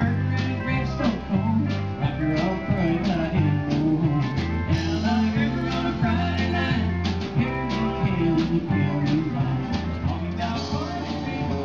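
Live country band playing: electric guitars, bass and drums with a steady beat, and a singer's voice over it.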